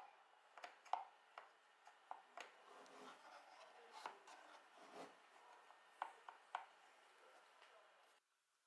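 Light, scattered clicks and knocks of small wooden puzzle-box parts being handled and fitted together, about a dozen over several seconds. The faint background cuts to near silence near the end.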